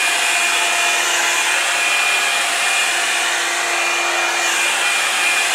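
Revlon One-Step Hair Dryer and Volumizer, a hot-air round-brush dryer, running steadily: a rush of blown air with a faint steady motor whine.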